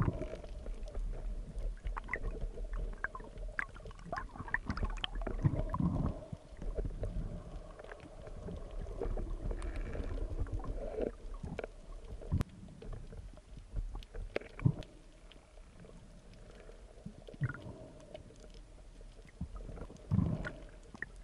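Underwater sound picked up through an action camera's waterproof housing: a muffled low rumble of moving water with a faint steady hum and scattered clicks and knocks.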